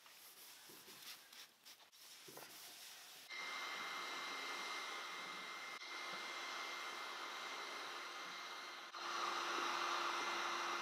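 A stiff brush scrubs stripper-softened old contact adhesive on a fiberglass car hardtop in short irregular strokes. About three seconds in, a power tool starts running steadily with a thin high whine. Near the end, a louder steady blowing hiss with a low hum takes over.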